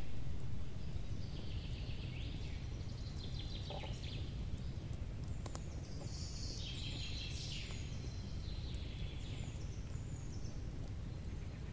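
Songbirds singing in a forest, repeated trilled phrases over a steady low rumble of background noise, with a few sharp crackles from a wood campfire.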